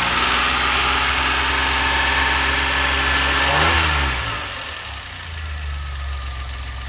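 DeLorean's PRV V6, newly converted to a two-barrel carburetor, running at a high idle just after starting. About halfway the throttle linkage is worked with a quick blip, and the engine settles to a slower, quieter idle.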